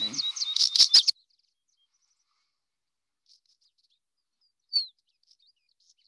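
Northern wheatear song: a fast burst of high chirps and clicks lasting about a second, then a few faint notes and one short falling note near the end.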